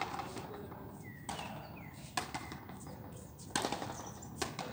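Frontenis rally: the rubber ball being struck by rackets and cracking off the fronton's front wall and concrete floor, a handful of sharp hits spaced about a second apart, the loudest about three and a half seconds in.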